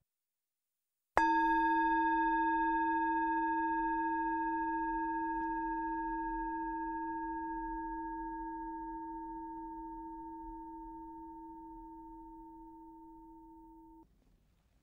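A meditation bell struck once about a second in. It rings with a low tone and several higher tones above it, fading slowly, then cuts off abruptly near the end. It is the bell that closes a guided meditation session.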